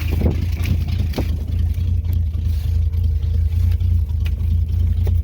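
Pickup truck engine idling steadily as it warms up after a cold start, a low even rumble, with a few faint knocks over it.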